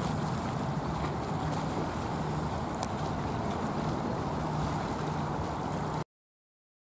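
Steady rumble of jet airliner engines with a low hum held under it, cutting off abruptly about six seconds in.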